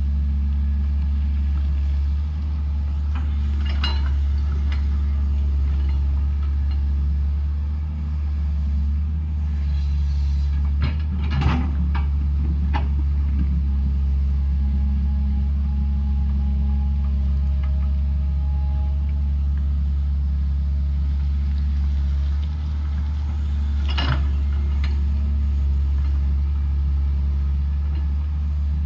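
Heavy diesel engine of a construction machine, likely the excavator, running steadily under work with a deep hum. There are a few sharp knocks, a cluster about a third of the way in and one more near the end.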